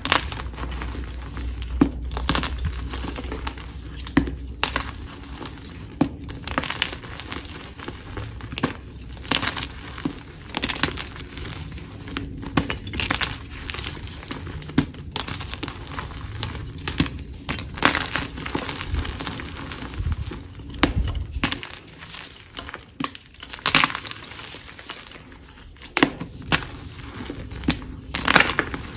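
Blocks of reformed gym chalk crushed and crumbled by hand: a continuous run of irregular crunches and powdery crumbling, with several sharp, louder cracks as pieces break.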